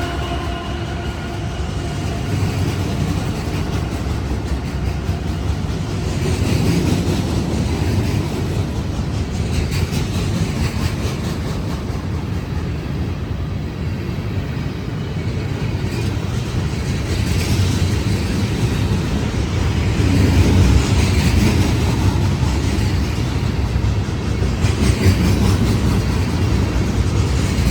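Union Pacific manifest freight train rolling past, a steady rumble of wheels on rail. The last of a horn note dies away in the first second or so.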